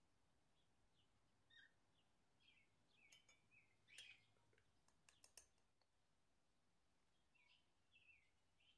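Near silence with faint, repeated short falling chirps of a small bird in the background, and a few faint sharp clicks around the middle.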